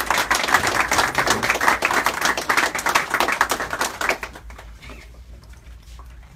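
A small group applauding, about four seconds of clapping that dies away.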